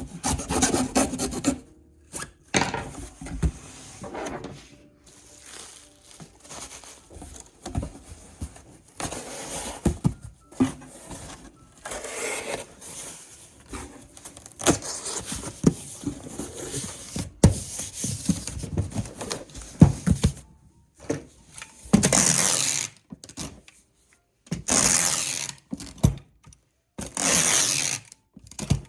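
Packing materials and cardboard being handled for shipping: irregular rubbing, scraping and rasping strokes with occasional knocks. Near the end come three louder rasps, each about a second long.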